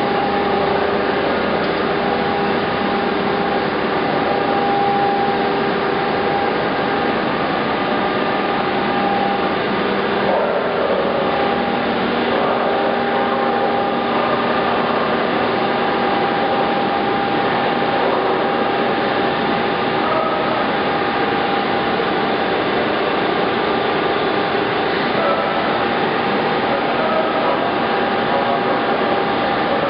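SMTW H-163 cylindrical grinder running under power: a steady machine noise with several held tones, even in level throughout.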